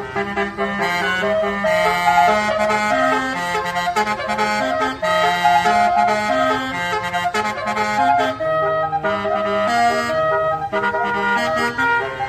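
A bus's basuri horn, a multi-trumpet musical air horn, playing a continuous tune of held notes that step from one pitch to the next.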